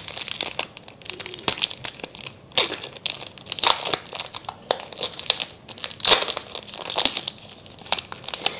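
Foil wrapper of a Pokémon booster pack being torn open and crinkled by hand: irregular crackling crinkles, with louder ones about two and a half, three and a half and six seconds in.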